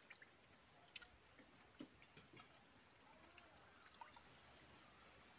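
Near silence, with a few faint scattered clicks from wet fish pieces being handled and set down in steel plates.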